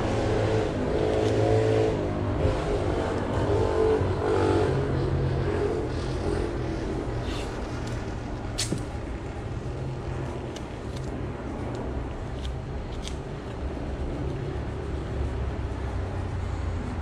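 A motor vehicle engine running, with revs rising and falling over the first few seconds before it fades into a steady low drone. A few light clicks are heard along the way.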